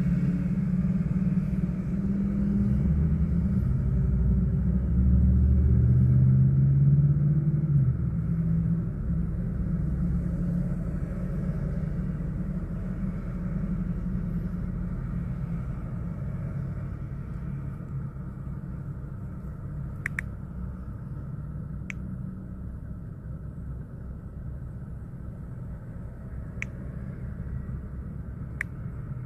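Low rumble heard from inside a car stopped at an intersection: its idling engine plus traffic crossing in front. It is loudest over the first eight seconds, then settles to a quieter, steady hum. A few sharp clicks come in the last ten seconds.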